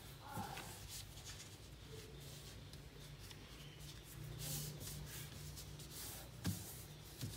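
A sheet of A4 paper rustling and sliding against a wooden tabletop as it is folded and its tips are lined up, with two short soft knocks near the end.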